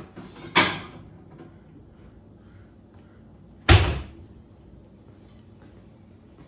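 Two sharp kitchen knocks about three seconds apart, the second louder and deeper, as a plate is fetched from a cupboard: the cupboard door and the plate knocking.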